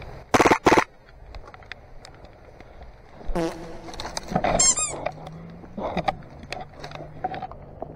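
Two quick full-auto bursts of rapid popping from an AAP-01 gas blowback airsoft pistol built into a homemade SMG, in the first second. Then rustling movement through brush, a couple of short high-pitched sounds near the middle, and a low steady hum from about five seconds in.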